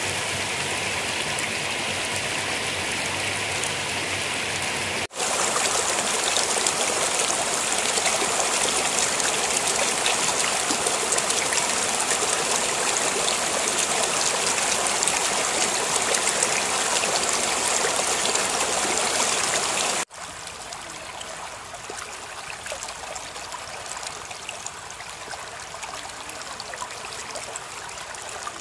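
Floodwater spilling over a low ledge, a steady rush of running water. It jumps louder about five seconds in and drops softer about twenty seconds in.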